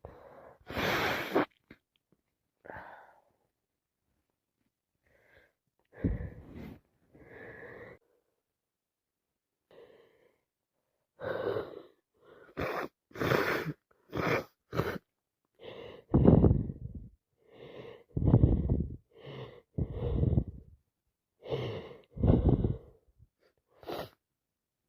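A woman with a heavy cold gasping and wheezing through sneeze build-ups, with sneezes among them. A loud burst comes about a second in. From about halfway through comes a quick run of short, sharp bursts, then several longer drawn-in gasps near the end.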